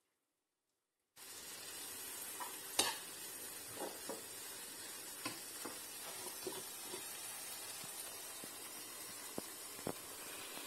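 Pounded dried anchovies, shallots and chili sizzling in oil in a nonstick wok, starting abruptly about a second in. A slotted metal spatula scrapes and taps against the pan a dozen or so times at irregular intervals as the mixture is stirred.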